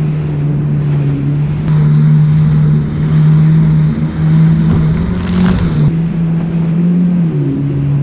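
Yamaha FX Cruiser HO WaveRunner's four-stroke engine running steadily at cruising speed across choppy water, with wind and spray rushing past. The engine note dips briefly about four seconds in and drops slightly near the end.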